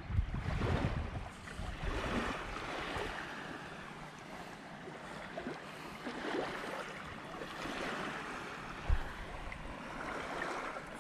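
Surf washing on a beach, with wind buffeting the microphone in the first second or so, and a single low thump about nine seconds in.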